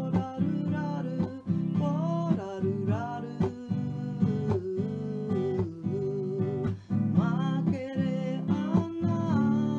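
Acoustic guitar strumming chords in a steady rhythm under a singing voice carrying a gliding melody of a Māori song.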